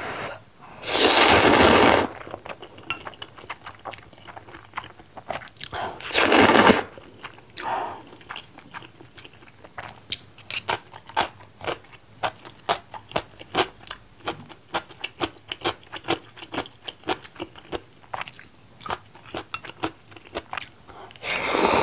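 A person slurping instant jjajang-style ramen noodles in long noisy pulls, about a second in, again around six seconds and once more at the end, with rapid wet chewing and crunching in between, including the crunch of pickled yellow radish (danmuji) around the middle.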